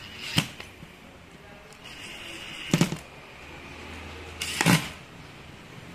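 A cordless power driver running in short bursts, about three times, driving screws into the plastic housing of a cordless drill, with a brief whine before the second burst.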